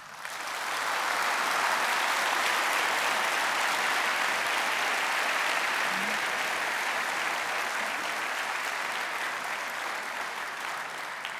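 Audience applauding, swelling within the first second and slowly tapering off near the end.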